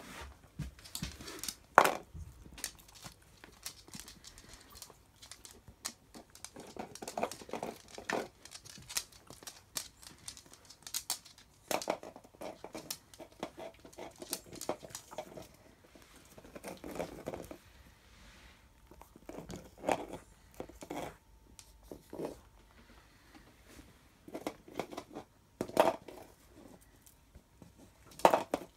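A dog chewing a puffed pig snout treat: irregular crackling crunches and tearing bites with short pauses between them.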